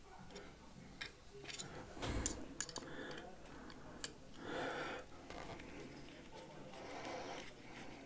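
Faint small clicks and ticks of a screwdriver bit turning the pocket-clip screws out of a folding knife's handle, with a soft knock about two seconds in.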